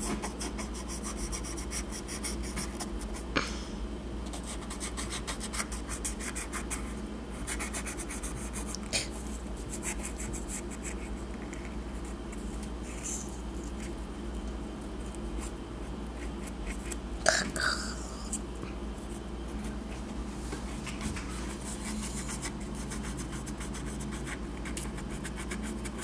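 Felt-tip marker scribbling over a shell in quick, dry scratching strokes. A few sharper clicks stand out, the loudest about seventeen seconds in.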